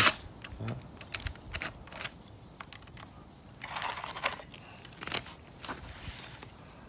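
Scattered light clicks and small metallic rattles of a bit and screw being handled and fitted at a Ryobi cordless drill, with a short rustling scrape about four seconds in and a sharper click about a second later.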